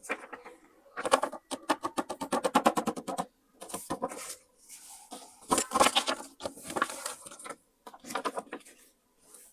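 Paper being handled in close-up scrapbooking: a rapid run of crackling clicks, about ten a second, starting about a second in and lasting about two seconds, followed by several short rustles and scrapes of paper.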